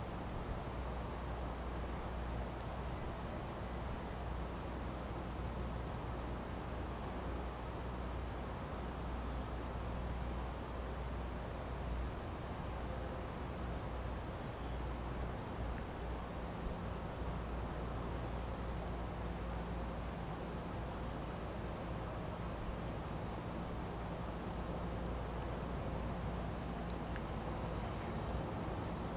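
A chorus of crickets trilling steadily: a high, finely pulsing shrill that never lets up, with a faint low hum underneath.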